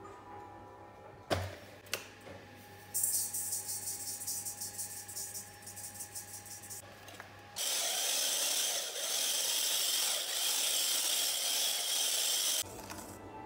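Two knocks about a second in, then granulated sugar poured from a glass jar into a stainless steel bowl of eggs, a crackly hiss lasting about four seconds. An electric hand mixer then runs steadily for about five seconds, beating the eggs and sugar, and stops abruptly; it is the loudest sound.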